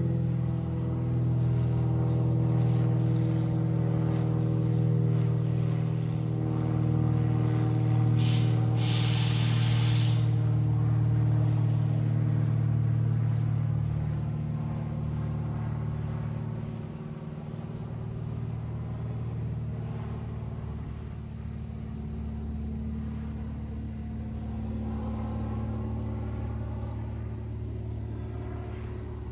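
Light single-engine propeller plane flying overhead: a steady engine drone, louder for the first dozen seconds and then fainter. A brief hiss about eight seconds in.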